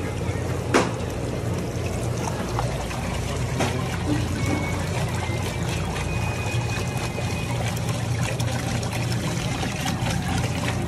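Water bubbling and trickling in aerated live-seafood tanks, over a steady low hum. A single sharp click about a second in is the loudest sound.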